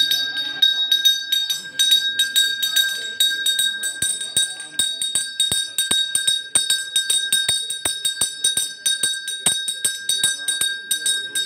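A small bell rung rapidly and continuously, about three or four strikes a second, keeping up a high, steady ring, as a temple puja bell is rung during the rite.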